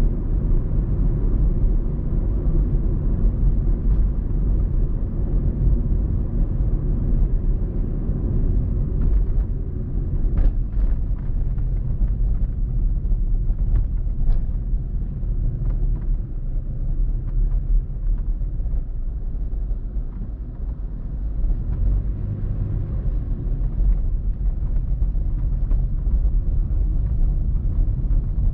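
Steady low rumble of a car driving: engine and road noise as heard from the car. A few faint clicks come through about halfway through.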